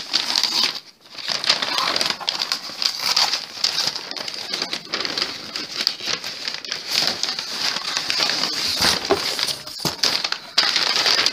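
Paper crinkling and rustling as wrapping paper is pulled off a framed piece, noisy and nearly continuous, with a brief pause about a second in.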